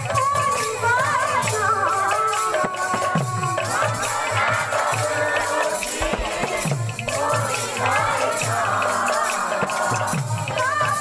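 Live kirtan folk music: a wavering amplified lead melody over a two-headed barrel drum whose bass strokes bend downward in pitch, with steady jingling, rattling percussion.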